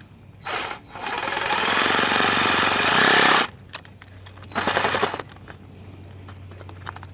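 Power tool cutting into the plastic housing of a septic float switch, run in stop-start bursts: a short burst, a long run of about two and a half seconds, then another short burst.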